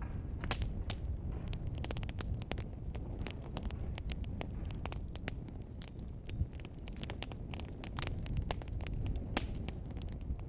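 Wood fire burning in a fireplace: a low rumble of flames with frequent irregular crackles and pops.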